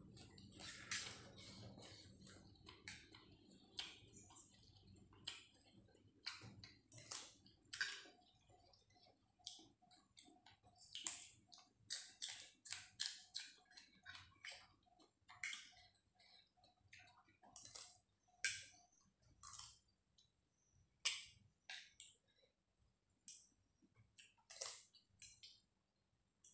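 Close-up eating sounds: irregular wet mouth clicks and chewing of rice noodles and salad, with now and then a light tap of a spoon or fork on a steel tray.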